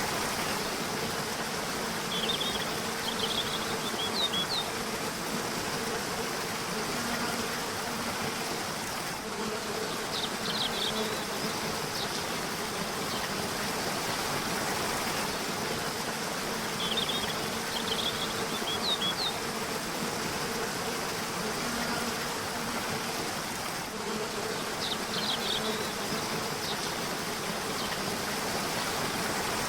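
Steady rush of a flowing river or waterfall, with a low buzzing hum beneath it. Short clusters of high bird chirps come in four times, about every seven or eight seconds.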